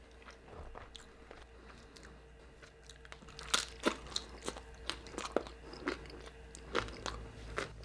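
Close-up chewing of al pastor nachos: a string of irregular crisp crunches from the tortilla chips, starting about three seconds in.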